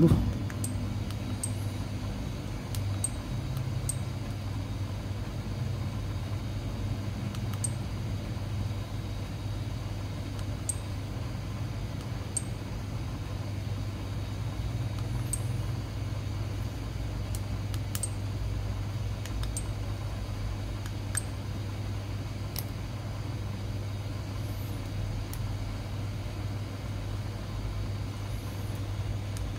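A steady low hum, with small sharp clicks every second or few seconds from the buttons of an SJCAM SJ4000 action camera being pressed.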